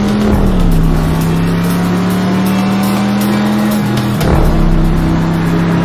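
A 1967 Chevrolet Impala's V8 engine runs steadily at speed, its pitch easing down about half a second in and shifting again about four seconds in.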